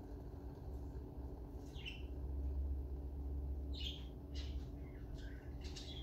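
Water in a glass electric kettle bubbling down just after the boil, with a low rumble that swells in the middle and then eases. Four short high chirps sound over it.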